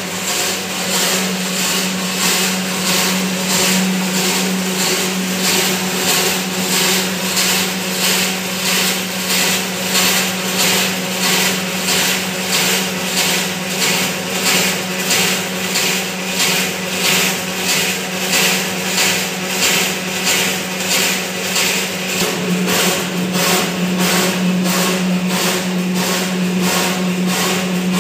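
Electric dough mixer of a noodle-making plant running, mixing a batch of flour and water: a steady motor hum with a regular churning pulse a little faster than once a second.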